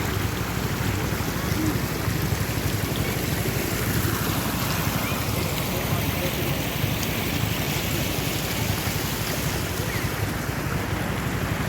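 Steady rushing noise of floodwater, with wind buffeting the microphone and a low rumble underneath.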